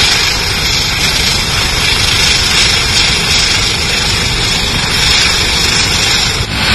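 Canadair water-bombing aircraft's twin turboprop engines running, a loud, steady noise.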